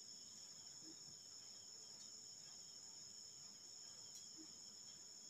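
Near silence, with a faint, steady high-pitched trill or whine.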